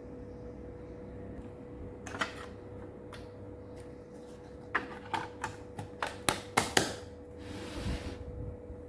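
A quick run of sharp clicks and knocks, about ten in two seconds, after a couple of earlier knocks, followed by a brief soft hiss or rustle near the end, over a steady faint hum.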